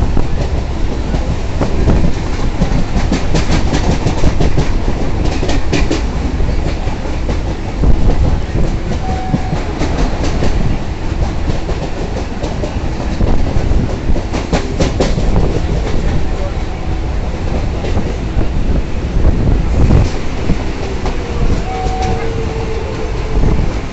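Indian Railways suburban local train running at speed, heard from an open coach doorway: a steady loud rumble with clickety-clack of the wheels over rail joints, in clusters of quick clicks now and then.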